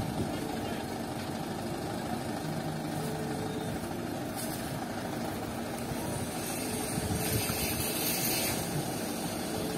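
Diesel engine of a Mitsubishi Fuso light dump truck idling steadily.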